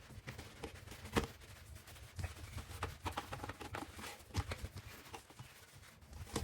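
Irregular clicks, knocks and light rattles of plastic vacuum cleaner parts being handled by hand during cleaning, with sharper knocks about a second in, around four seconds in and at the end. The vacuum motor is not running.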